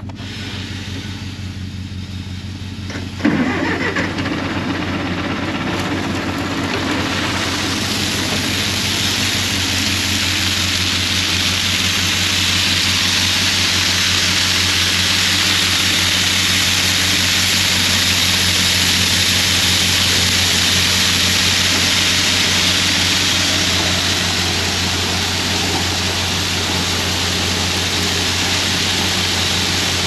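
Farm tractor engine running steadily, with a sudden loud onset about three seconds in as the grain auger starts. From about seven seconds a steady rushing sound builds and holds: shelled field corn pouring from a gravity wagon into the auger hopper and being carried up the auger.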